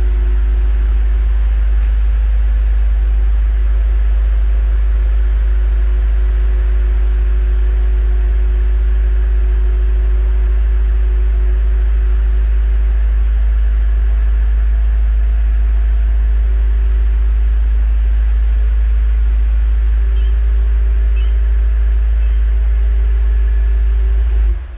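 BMW M5 (F90)'s twin-turbo V8 idling steadily after a remote start, a deep unchanging hum; it stops abruptly near the end.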